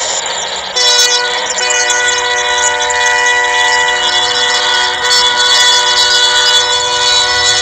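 Train horn blowing one long, unbroken blast, a chord of several steady tones that starts suddenly about a second in.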